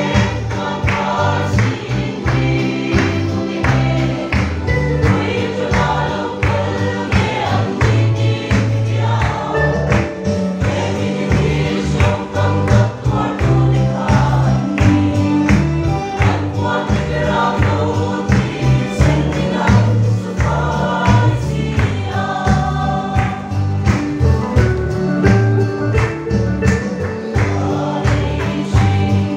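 Mixed youth choir singing a gospel song together, accompanied by large double-headed cylindrical drums beaten in a steady rhythm.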